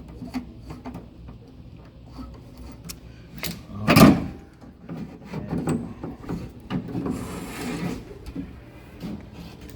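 Clicks, knocks and rubbing as a car's vent window assembly is worked loose from the door frame, with one loud knock about four seconds in and a scraping rub around seven seconds in.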